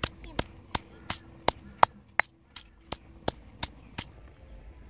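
Stone pestle pounding garlic and chili in a stone mortar, steady knocks about three a second, stopping about four seconds in.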